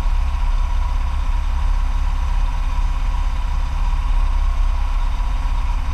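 Kawasaki Vulcan Mean Streak's V-twin engine idling steadily.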